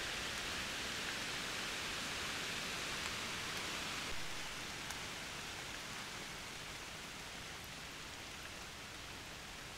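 Steady rain hissing on leaves, easing a little about four seconds in.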